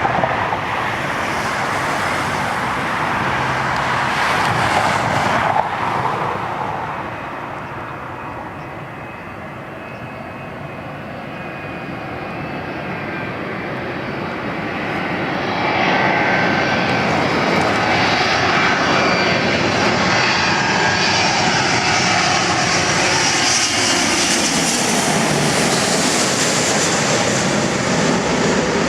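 Boeing 777-200ER twin-engine jet airliner landing: continuous jet engine noise with high whining fan tones. It eases off in the first third, then swells louder a little over halfway through and stays loud and hissier to the end.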